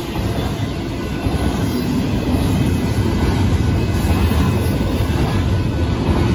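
Union Pacific double-stack intermodal train passing close by at speed: a steady rumble and clatter of the well cars' wheels on the rails, growing a little louder about a second in.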